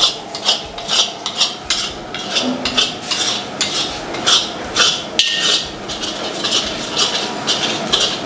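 A spatula scraping and stirring around a large metal kadhai in quick, even strokes, about two or three a second. It is working a ground masala of dried coconut, roasted gram dal and whole spices as it fries in oil.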